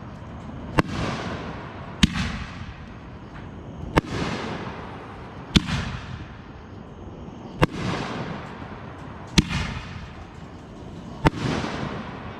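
Consumer aerial fireworks going off: seven sharp bangs about every two seconds, each followed by a rolling echo that dies away over about a second.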